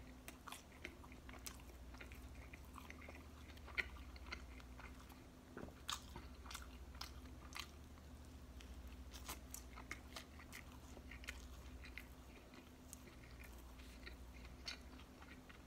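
Faint chewing of a pulled-pork and coleslaw sandwich: soft, irregular wet mouth clicks and smacks as the bread, meat and slaw are bitten and chewed.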